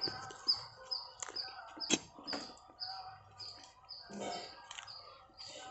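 Sharp knocks and scrapes of a digging rod being jabbed into the soil, the loudest about two seconds in. Alongside, a bird repeats a short, high, falling note about twice a second.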